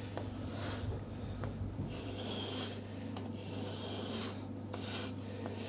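Edge of a Stanley 60½ block plane's cast-iron sole rubbed on abrasive paper over a granite slab, the plane tilted at about 45 degrees to take the hard corner off. It makes slow rasping strokes, about four, over a low steady hum.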